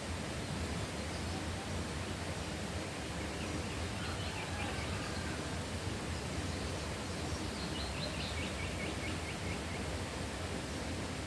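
Rural outdoor ambience: a steady noise bed with faint bird calls over it, a few chirps about four seconds in and a quick, slightly falling run of notes from about two thirds of the way through.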